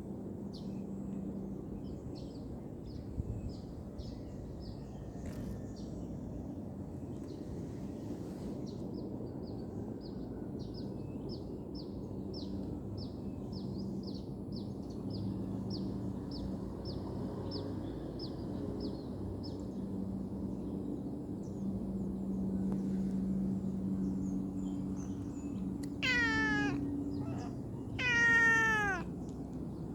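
A cat meowing twice near the end, each call about a second long and falling in pitch. Faint high chirping, about two a second, over a steady low hum before it.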